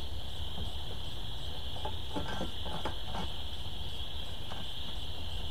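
Steady high-pitched insect chorus, typical of crickets, with a few faint clicks about halfway through.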